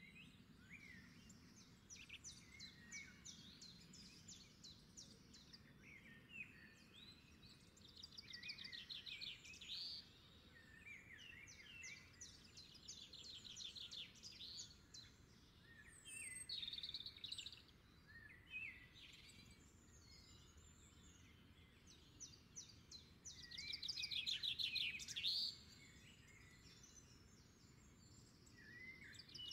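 Birdsong: several small birds chirping and singing rapid trills, over a faint low background hum. A louder burst of trilling comes near the end.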